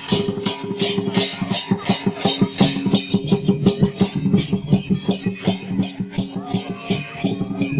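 Music with a fast, even beat over steady sustained low notes.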